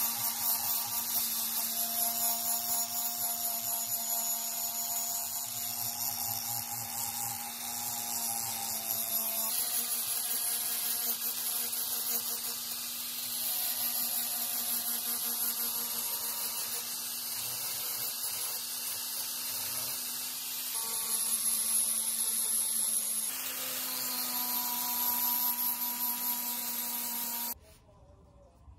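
A small electric power tool runs with a steady hum while its head scrubs against a workpiece. It comes in several spliced takes that shift slightly in tone, and it drops out for about a second near the end.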